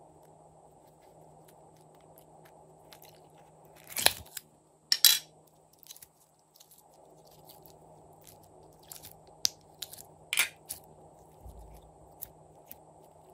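Glossy slime being stretched and squeezed by hand, giving sharp sticky pops and crackles: a loud pair about four and five seconds in, and another cluster around ten seconds in.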